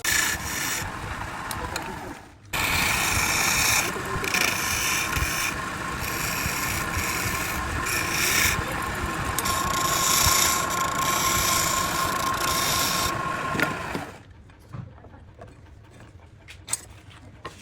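Power tool cutting into wood, a harsh scraping noise with a steady whine, breaking off briefly about two seconds in and stopping a few seconds before the end.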